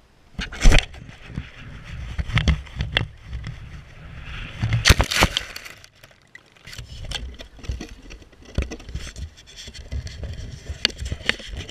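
Wind buffeting the microphone of a GoPro mounted on an Air Hogs toy plane, broken by sharp knocks and scrapes as the plane hits and tumbles through grass. The loudest knocks come about a second in and around five seconds in.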